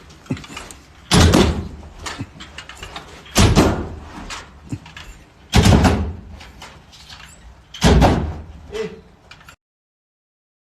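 Four heavy bangs at an even pace, about two seconds apart, with lighter knocks between them; the sound cuts off suddenly near the end.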